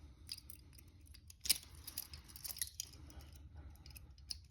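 Scattered small metallic clicks and rattles of handcuffs being handled, with one sharper click about one and a half seconds in.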